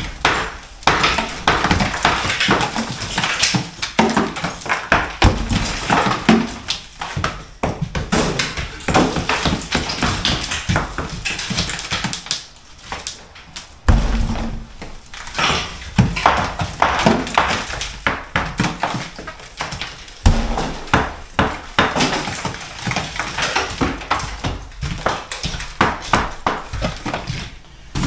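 Crumbly old brickwork being pulled down by hand, without power tools: bricks and rubble knocking and clattering in quick, irregular knocks.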